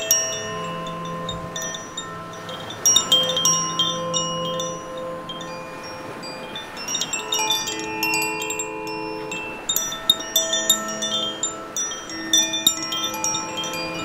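Koshi Air wind chime, tuned metal rods inside a bamboo tube, tinkling in bursts of quick strikes every few seconds. Its notes ring on and overlap. Under it is the soft wash of waves breaking over rocks.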